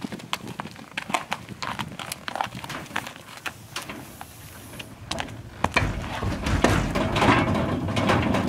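A draft cross horse's hooves step on gravel in separate sharp clops. From about five and a half seconds in they become louder, denser thuds and clatter as the horse walks up onto the floor of an aluminum stock trailer and loads.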